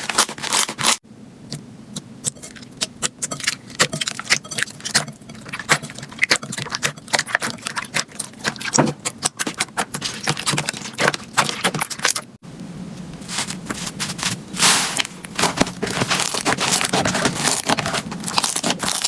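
Hands squeezing, poking and stretching slime: a dense run of small clicks, pops and crackles, with the clip changing abruptly about a second in and again about twelve seconds in.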